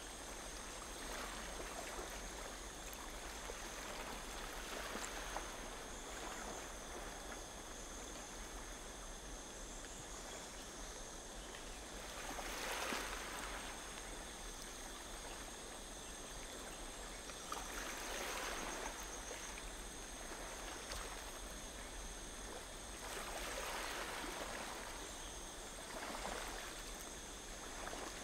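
Water lapping and trickling, swelling softly every few seconds, over a faint steady high whine.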